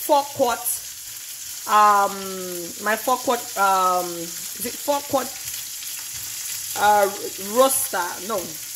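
Steady sizzling of a whole chicken frying without oil in a Saladmaster electric skillet, under a woman's voice speaking in short phrases.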